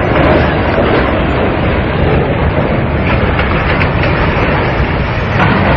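Loud, steady rumble of a large ship's hull sliding and grinding down its launch ways during a shipyard launch.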